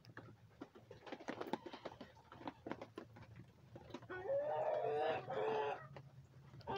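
A hen gives a drawn-out, wavering call about four seconds in, lasting nearly two seconds. Scattered light ticks and taps come before it.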